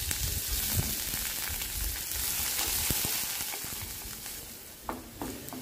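Chopped onion sizzling in hot oil in a kadai, stirred with a wooden spatula, with a few light knocks. The sizzle eases off a little in the second half.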